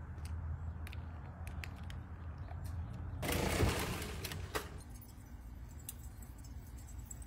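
Light clicks of handling against an aluminium foil pan, then a brief loud crinkling rush about three seconds in as the foil pan is set on the metal grill grates, over a low steady hum.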